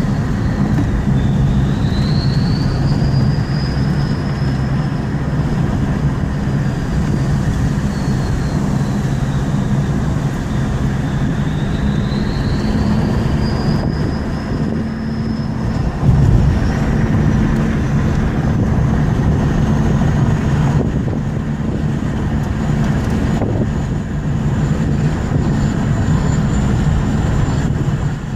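Ford F350 turbocharger whistling over the engine's steady drone. The whistle rises and falls in pitch twice, then climbs higher and holds in the second half.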